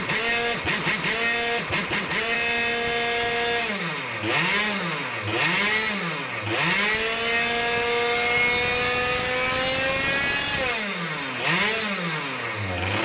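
Go-kart engine running hard on a dyno, its revs holding, then dipping and surging several times and slowly climbing as the dyno's load valve is worked. The revs won't stay steady, which the builder puts down to a flow control valve too big for the dyno, leaving too small a window between full load and no load.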